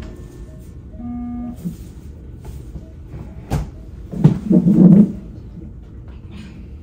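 Short electronic beeps from bedside hospital monitoring equipment, a knock about three and a half seconds in, and about four seconds in a loud strained human vocal sound lasting about a second, from a woman in labour who feels about to vomit.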